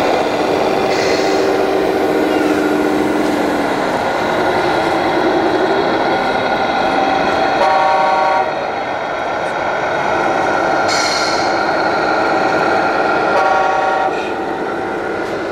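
Radio-controlled model vehicle running with its engine sound going steadily. It gives two short horn blasts about six seconds apart. A motor whine shifts in pitch in the first few seconds.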